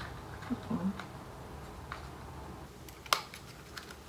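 Handling an eyeshadow's packaging while trying to open it: faint rustling and small knocks, then one sharp click about three seconds in.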